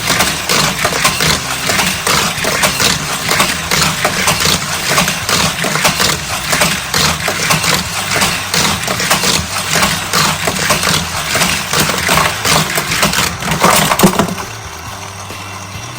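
Hot Wheels Power Shift motorized race track running: a rapid plastic clattering of toy cars on the track over a steady motor hum. Near the end the clatter stops and a quieter steady hum carries on.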